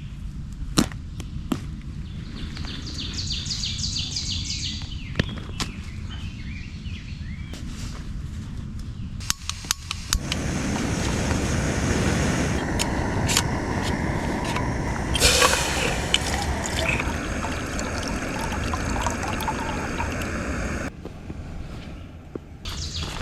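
Water being poured into a pot for coffee, a steady pour that starts about ten seconds in and stops suddenly near the end, with clicks and knocks of camp gear being handled before it.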